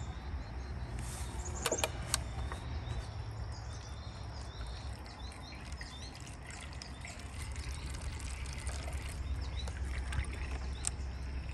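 Water poured from a jug through a cut-off plastic bottle used as a funnel into an RV's fresh-water gravity fill inlet, a steady trickling pour. A few sharp clicks of plastic come about two seconds in and near the end.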